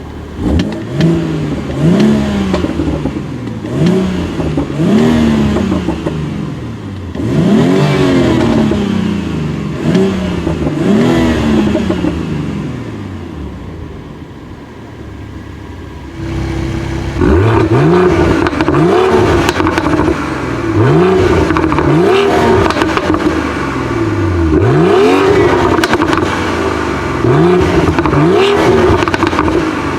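2018 BMW X3 M40i's turbocharged 3.0-litre inline-six being revved while stationary: repeated quick rev blips, each rising and falling back toward idle. It settles to a steady idle about halfway through, then the blips start again.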